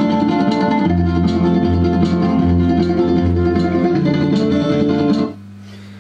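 Guitar music played through a prototype 833A valve audio amplifier and its speaker; the music stops about five seconds in, leaving a steady low mains hum from the amplifier.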